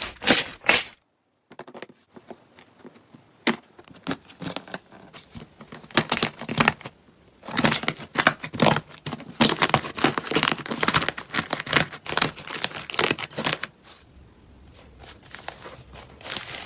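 Slime being squeezed, stretched and pulled apart by hand, giving rapid crackling and popping clicks. There is a short break about a second in, the crackles are densest in the middle and thin out near the end.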